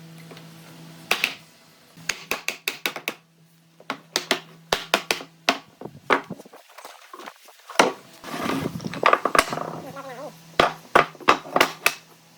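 Irregular sharp knocks and taps of hand tools striking wood, coming in quick clusters over a steady low hum.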